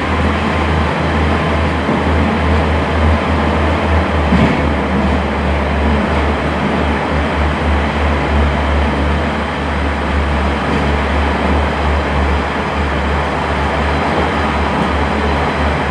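Inside a Class 142 Pacer diesel railbus on the move: a steady low drone from the underfloor diesel engine with wheel-on-rail running noise, and one brief louder knock about four seconds in.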